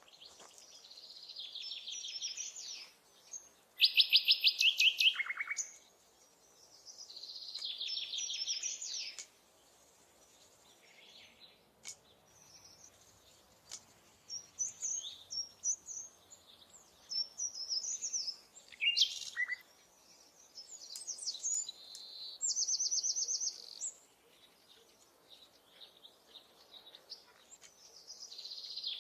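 Songbirds singing: repeated high phrases of rapid trilled notes, the loudest a few seconds in, with scattered short chirps in between.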